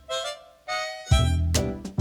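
Background music: a sustained melody line with a reedy, harmonica-like sound. The bass and beat drop out for the first second, then come back in strongly.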